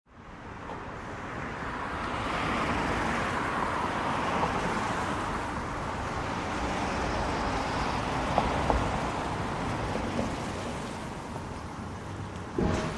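Road traffic driving through snow slush in moderately heavy, fairly fast flow, a steady tyre hiss on the wet road as cars pass. A couple of short clicks come about two-thirds through, and a brief louder knock near the end.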